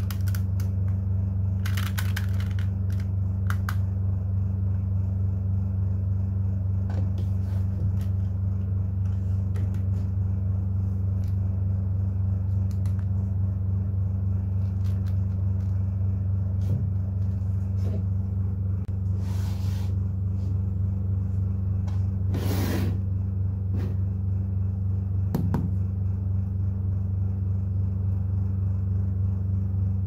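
A steady low hum runs throughout, with a few faint clicks and two short scraping sounds about 19 and 22 seconds in.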